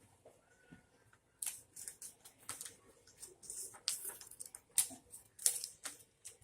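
Plastic Lego pieces clicking and rattling as they are handled and snapped together. The quick run of sharp clicks starts about a second and a half in.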